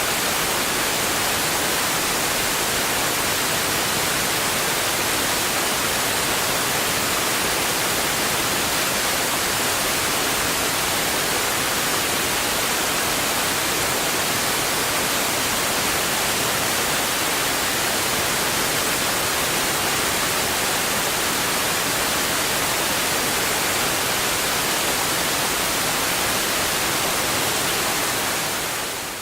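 Rough waterfall rushing: a steady, dense hiss of falling water that fades out at the very end.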